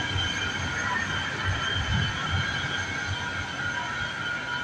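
Metro Rail light-rail train passing close by, a low uneven rumble from its wheels on the rails with a steady high-pitched squeal over it.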